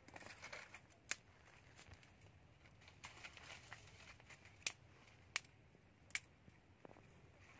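Small fire of dry twigs crackling, with a few sharp snaps scattered through and a soft rustle of dry twigs and leaves as sticks are pushed into the flames.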